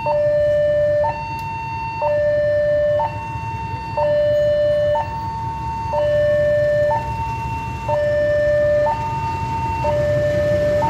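Railway level-crossing alarm sounding a two-tone warning, a higher and a lower tone taking turns about once a second, while the barriers are down for an approaching train. Under it, the low rumble of the approaching diesel locomotive grows louder near the end.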